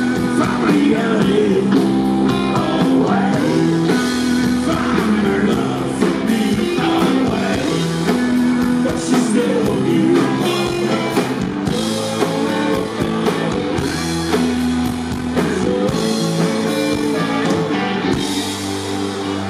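A rock band playing live: electric guitar, bass guitar and drum kit, with singing.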